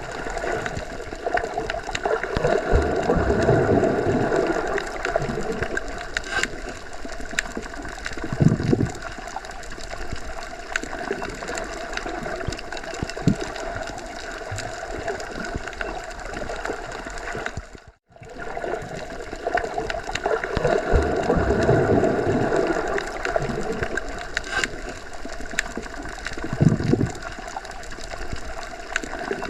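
Underwater ambience as heard when submerged: a muffled, steady water rush with a faint hum underneath, swelling twice with a low thump after each swell. The sound drops out for a moment about two-thirds of the way through, then the same passage repeats.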